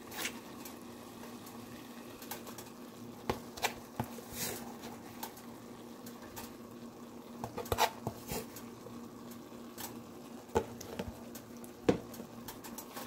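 Chopped onions cooking in a stainless steel pot with a faint, steady sizzle over a low hum, while berbere chili powder is spooned in. A light tap or click sounds every second or two.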